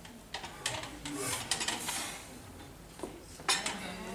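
Loaded barbell and its Eleiko plates clinking and knocking irregularly as a lifter unracks it and walks it out of the squat rack.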